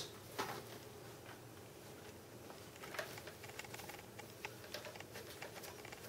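Faint, irregular small clicks and scrapes of a screwdriver loosening the captive screws on the bottom edge of an iMac G5's plastic case.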